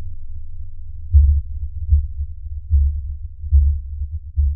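Vibration of a 1 mm stainless steel sheet, recovered as sound from 180 fps camera frames of a laser reflected off the metal. It is a very low hum that swells louder five times, roughly every 0.8 s.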